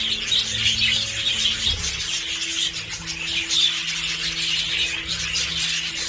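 A flock of budgerigars chattering, with many short, overlapping chirps and warbles.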